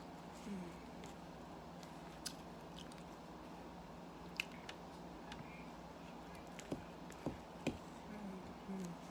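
Close-up eating sounds while chewing barbecue ribs: scattered short wet mouth clicks and smacks, with a few soft thumps a little past the middle, over a steady background hiss.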